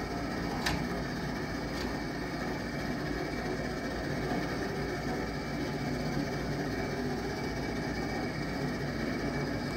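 Force 110 mini excavator's engine idling steadily, with two short clicks about a second and two seconds in.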